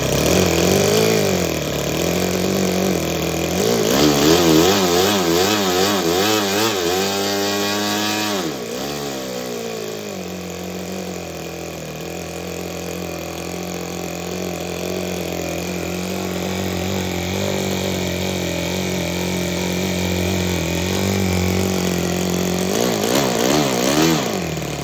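Toyan FS-L200 two-cylinder four-stroke nitro model engine running while its carburettor is being tuned. Its speed wavers up and down, rises sharply about seven seconds in and falls back, then holds steady before wavering again near the end.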